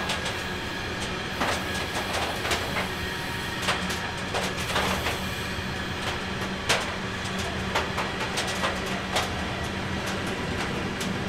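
Train rolling along the track, a steady hum with irregular clicks and knocks.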